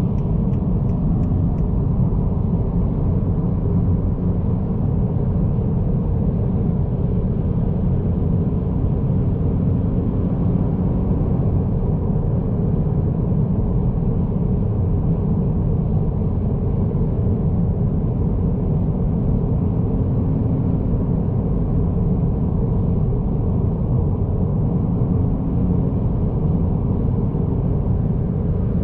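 Steady low rumble of tyre, road and engine noise inside the cabin of a 2022 Honda Accord Sport with its 1.5-litre turbocharged four-cylinder, driving at highway speed. A faint even hum sits under the rumble.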